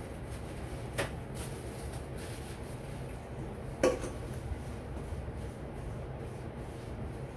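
Stainless steel mixing bowl handled on a tiled floor, over a steady low hum: a light knock about a second in, then a louder metallic clank with a short ring near four seconds in as the bowl is lifted and tilted.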